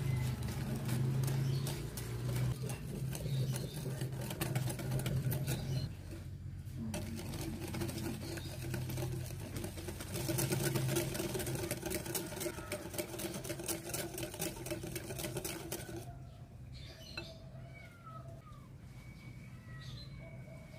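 Wire balloon whisk beating egg and sugar in a glass bowl: a fast, steady clatter of the wires against the glass. It stops about 16 seconds in, leaving a few faint chirps.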